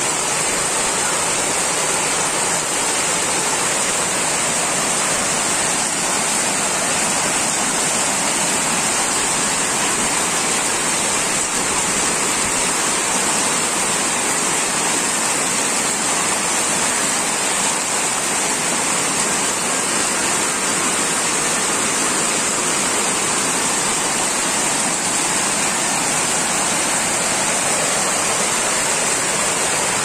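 Torrential rain pouring down steadily, splashing into the standing water of a flooded dirt courtyard, an even, unbroken hiss.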